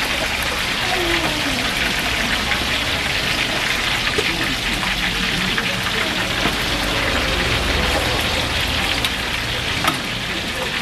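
Battered squid deep-frying in a wide pan of hot oil: a steady sizzling hiss, with one sharp click near the end.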